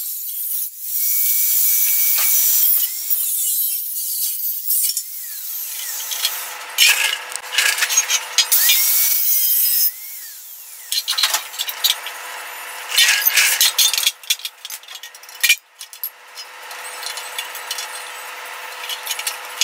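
Angle grinder with a cutoff wheel cutting through a steel rear cab floor support, in repeated loud bursts with the motor running between cuts.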